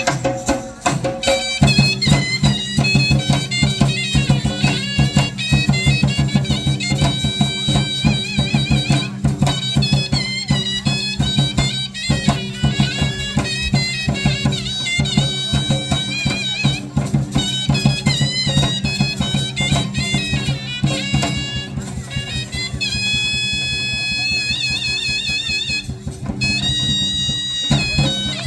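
Traditional Indian instrumental music: a double-reed wind instrument plays a wavering, ornamented melody over a steady drone, with fast drumming. The drone comes in about a second and a half in, and near the end the melody settles into long held notes.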